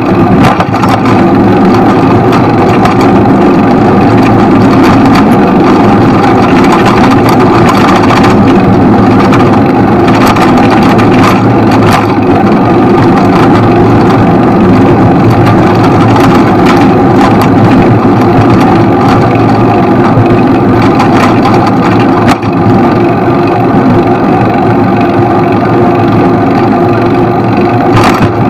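Steady, loud city traffic and road noise heard while riding a bicycle along a busy street.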